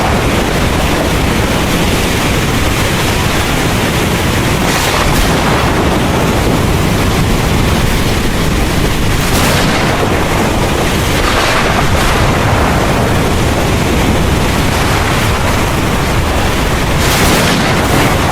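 Heavy rain pouring with a continuous low rumble of thunder underneath. The rushing hiss swells briefly a few times, about five, nine and eleven seconds in and again near the end.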